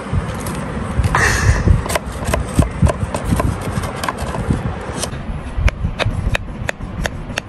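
Square metal baking pan rubbing and scraping against a ceramic plate as a baked brownie slab is worked loose and turned out. In the second half there is a run of sharp clicks and knocks.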